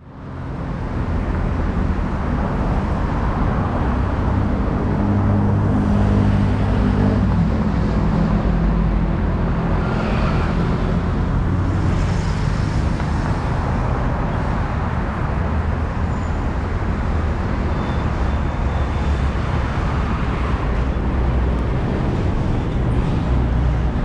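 Engine of a long canal boat running with a steady low rumble, its tone shifting slightly about seven seconds in.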